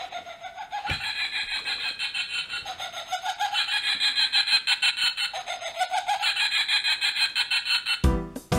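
Laughing-bag toy playing its recorded laughter, a fast, unbroken string of cackling ha-ha-ha's, set off by the dog pressing it. A soft thump about a second in, and piano music comes in near the end.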